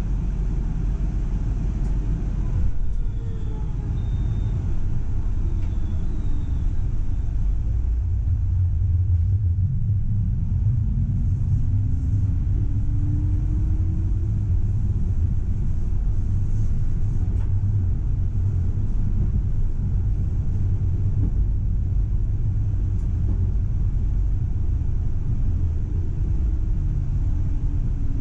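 Tram running along the track, heard from inside the driver's cab: a steady low rumble, with a motor whine that rises in pitch as it speeds up about ten seconds in and falls again near the end as it slows.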